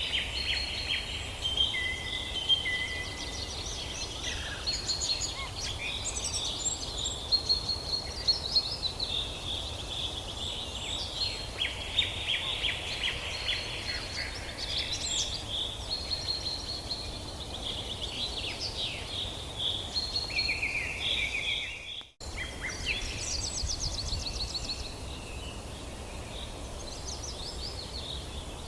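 Several songbirds calling at once in a forest chorus: overlapping high chirps, rapid trills and short whistled glides over a steady low rumble. The sound cuts out once for a split second about two-thirds of the way through.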